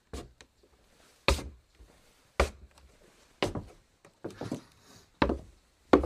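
Footsteps walking on wood: slow, even steps about one a second, each a sharp knock, with a few softer scuffing steps a little past the middle.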